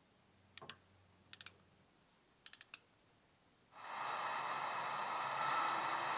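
Short groups of sharp clicks from a hand ratchet crimping tool closing on a wire connector, three bursts in under three seconds. Near four seconds in a Wagner heat gun switches on and runs with a steady blowing hiss.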